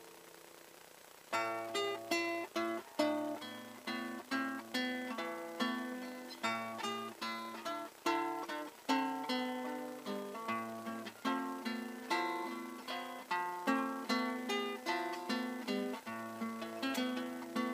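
Solo classical guitar playing a slow melody of single plucked notes over bass notes, about two notes a second, coming in after a short pause about a second in.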